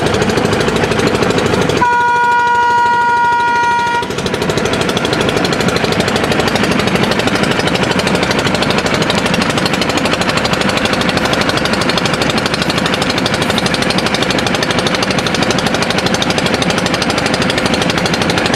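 Boat engine clattering rapidly and steadily, with a diesel locomotive's horn sounding once for about two seconds near the start.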